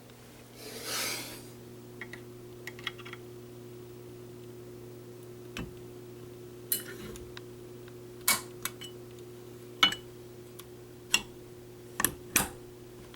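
Sharp clicks and clacks of small hard metal or plastic parts being handled, about half a dozen spread through the second half, over a steady low electrical hum. A short rustle comes about a second in.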